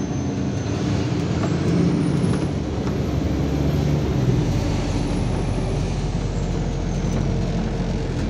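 MAZ-203 city bus heard from inside the cabin while driving: steady engine hum with road noise. A faint high whine rises about a second in and falls away again near the end.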